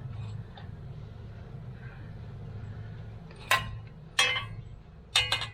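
Aluminum ladder rail knocking against the metal roof rack as it is set in place for a test fit: a few sharp metallic clanks in the second half, over a steady low hum.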